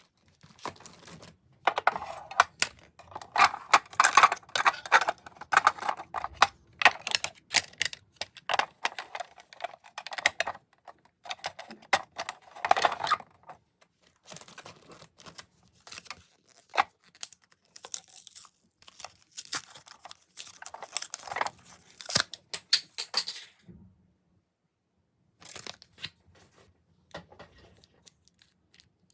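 Packaging being torn open and crinkled by hand, in irregular crackling bursts with short pauses and a brief quiet stretch near the end.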